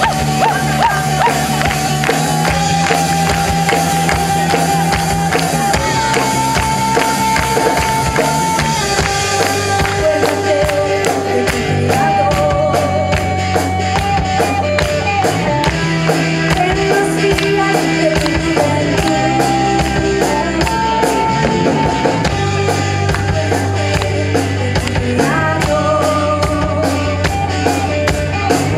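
Live rock band playing an instrumental passage: long held lead notes over keyboard, bass and drums, with a steady cymbal beat coming in about a third of the way through.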